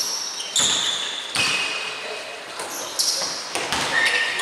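A basketball bouncing on a hardwood court several times at an uneven pace, with high-pitched sneaker squeaks from players moving, echoing in a large sports hall.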